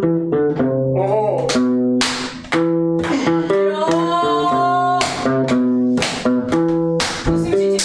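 Hollow-body electric guitar played live, sustained chords and notes with sharp strums about two, five and seven seconds in.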